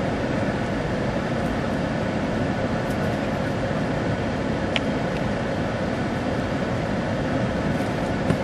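Steady rushing background noise with a faint hum underneath, unchanging throughout, and a single short click about halfway through.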